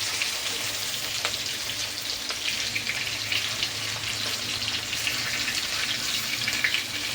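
Stuffed bitter gourds (karela) sizzling in hot oil in a kadhai, a steady frying hiss with small crackles.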